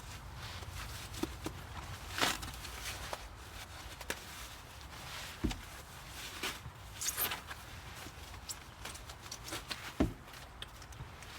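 Footsteps and scattered knocks with some rustling, irregular and unhurried, over a steady low rumble.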